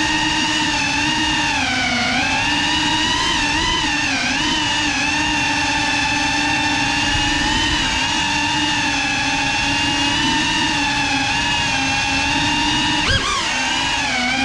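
Cinewhoop drone's brushless motors and ducted propellers whining steadily. The pitch dips and recovers with throttle changes about two and four seconds in. Near the end comes a sharp knock with a quick swing in pitch.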